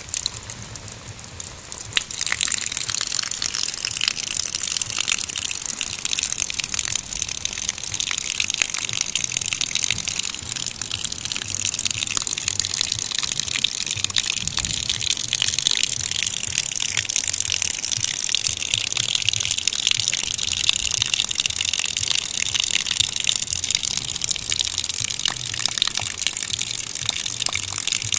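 Young hedgehog eating a snail: a continuous wet crackling and smacking, dense with fine clicks, that starts after a sharp click about two seconds in.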